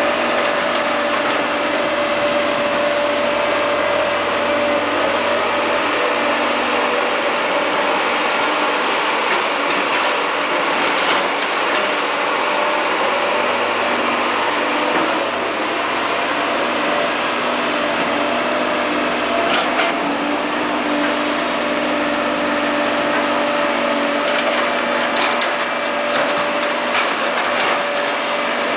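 Caterpillar E240B hydraulic excavator's diesel engine running steadily under digging work, with a few short knocks in the second half.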